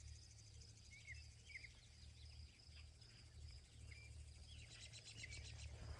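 Near silence with faint outdoor ambience: a steady high insect trill and a handful of short, faint bird chirps, over a low hum.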